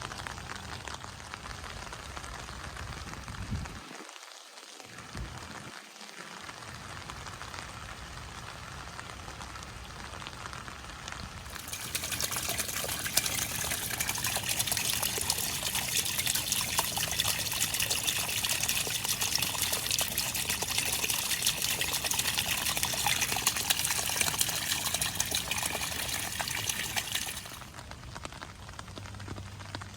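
Rain falling steadily, a fine even hiss. About a third of the way in it turns much louder and denser, a close spatter of drops, and stays that way until it drops back near the end.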